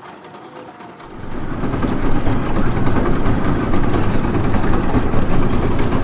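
Motorboat engine running. It comes in about a second in, rising to a loud, steady rumble.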